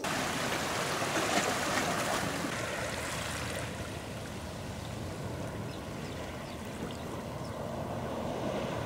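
Small waves lapping and washing over rocks at the water's edge, a steady wash that is louder over the first few seconds and then settles softer.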